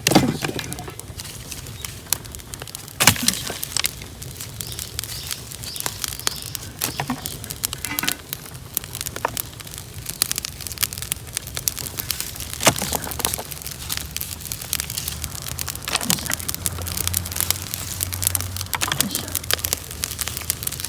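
Bonfire crackling and popping, with a rapid, irregular run of sharp cracks and a few louder ones, the loudest at the very start. A faint low hum joins in during the latter part.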